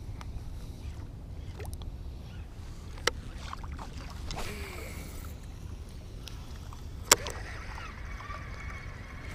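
Fishing tackle being worked from a boat: a steady low rumble underneath, two sharp clicks (the louder about seven seconds in), then a faint steady whine as a baitcasting reel is cranked in.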